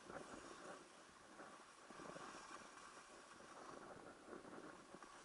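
Faint, irregular scraping and crackling of skis sliding over packed snow.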